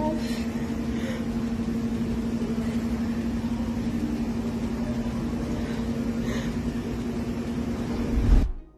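Steady low mechanical hum with a constant droning tone. A brief low thump comes near the end, just before the sound cuts off.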